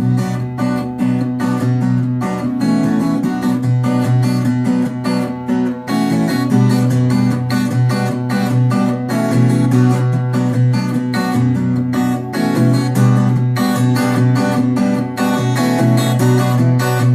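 Acoustic guitar strummed in a steady, even rhythm, playing the instrumental intro of a song.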